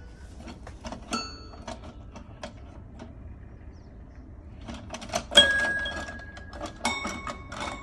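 Toy piano played by a baby: scattered light taps and knocks on the keys and floor, then a loud bright note rings out about five seconds in, followed by a second ringing note near the end.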